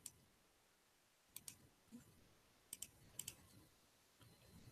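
A handful of faint computer mouse clicks, some in quick pairs, placing spline points one after another.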